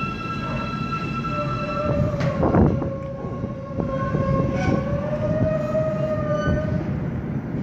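New York City subway train of R160 cars pulling along the platform, its electric traction motors giving a steady whine at several pitches over the rumble of wheels on rail. There is one loud clank about two and a half seconds in.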